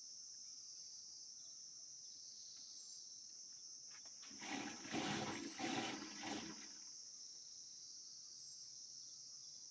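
Curd sloshing inside a churning pot as a wooden churning stick (madani) is spun back and forth by a rope, churning for butter. It comes midway as a burst of four or five swishes lasting about two seconds, over a steady chirring of crickets.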